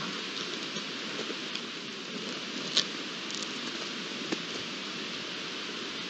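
Steady hiss of a trail camera's microphone in the night-time outdoor quiet, with a few faint sharp clicks, two of them a little louder about three seconds and four and a half seconds in.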